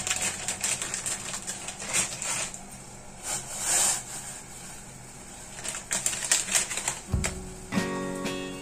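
Plastic instant-noodle packet crinkling in quick crackles as it is handled and opened, quieter for a few seconds in the middle. Background music comes in near the end.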